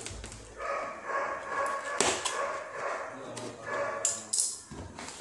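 Cardboard set-top box carton being handled and its lid flap pulled open, with sharp cardboard snaps about two seconds in and twice close together near four seconds.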